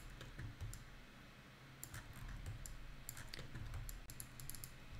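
Faint, scattered clicking of a computer mouse and keyboard while navigating the 3D viewport, most frequent from about two to three and a half seconds in, over a low steady hum.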